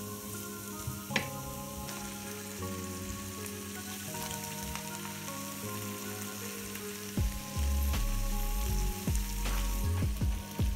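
Pasta sizzling and frying in a pan as it is stirred, with a few light clicks, under background music. The music grows louder with a deep bass part from about seven seconds in.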